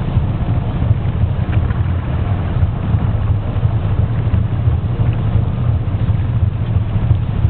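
Longtail boat engine running at a steady speed, a loud, even low rumble.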